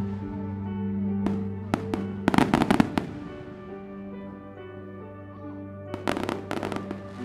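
Fireworks going off: a few single bangs, then a rapid run of crackling reports about two seconds in, and another crackling volley about six seconds in. Soft sustained ambient music plays underneath.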